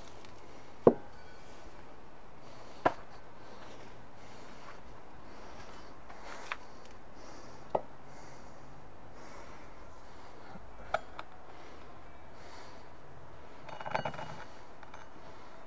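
Steel maces knocking and clinking as they are set down and leaned against each other. A few sharp metal knocks come several seconds apart, the loudest about a second in, and a quick run of lighter clinks comes near the end.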